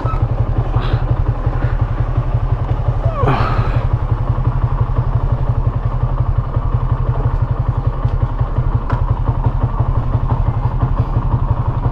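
Motorcycle engine running steadily at idle, its exhaust pulsing rapidly and evenly.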